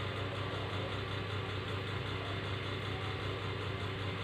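Steady low mechanical hum with an even hiss over it, unchanging and without distinct knocks or clicks.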